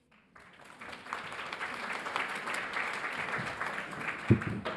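Audience applauding, fading in just after the start, with a single low thump near the end.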